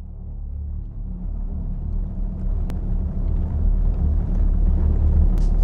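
Low rumbling ambient drone, swelling steadily in loudness, with one faint click partway through.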